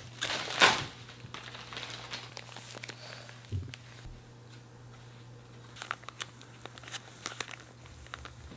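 A padded paper mailer envelope being torn open, the loudest rips in the first second, followed by paper crinkling and rustling in short crackles as the glossy pages inside are handled.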